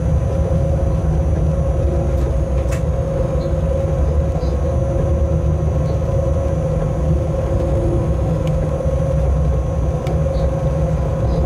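Cab noise of a locomotive running on its own along the track: a steady low rumble with a constant mid-pitched hum over it and a few faint clicks.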